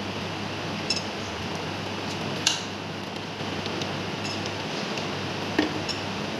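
Metal hand tools clicking and clinking against the terminals and metal parts of a circuit breaker's auxiliary switch wiring: three sharp clicks, the loudest about two and a half seconds in, with a few fainter ticks, over a steady low hum.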